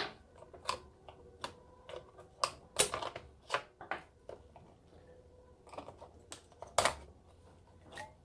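Irregular sharp clicks and light taps of batteries and hard plastic being handled as the batteries are taken out of an electronic kids' toy's battery compartment.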